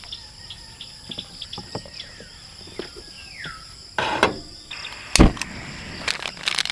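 Steady high-pitched insect chorus, with scattered clicks and knocks over it, a short falling whistle in the middle, and two heavier thumps, the louder one about five seconds in.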